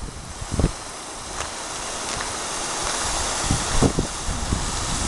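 A car coming along a wet road: a steady tyre hiss that swells gradually as it approaches, with a few low thumps of wind or handling on the microphone.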